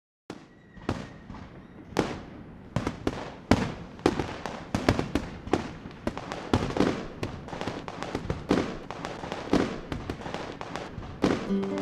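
Fireworks going off outside: an irregular run of sharp bangs and crackles, roughly two a second, each with a short ringing tail, starting suddenly out of silence.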